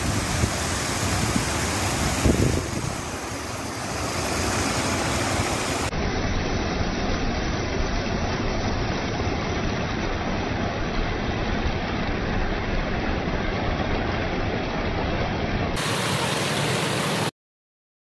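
Water rushing over a stone weir in a steady white-water rush, its sound changing abruptly twice where clips are joined, then cutting off suddenly near the end.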